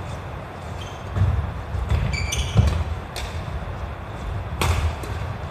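Badminton rally on a wooden gym floor: footsteps thudding as the players move, a short squeak of a shoe a little over two seconds in, and sharp racket strikes on the shuttlecock, the loudest about four and a half seconds in.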